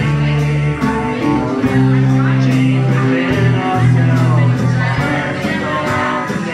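Live band playing a song: acoustic guitar and a drum kit keeping a steady cymbal beat, over long held low notes.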